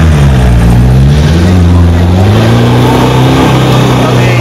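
Toyota Fortuner SUV's engine revving hard under load as it climbs loose sand with its wheels spinning. The revs dip about half a second in, climb again, then hold high.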